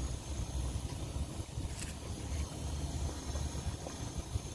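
Low, uneven rumble of wind buffeting the microphone, with no speech.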